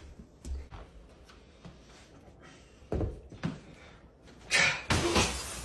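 Thumps and knocks from a door being handled and shoes being kicked off onto a carpeted floor, with a louder clattering crash near the end.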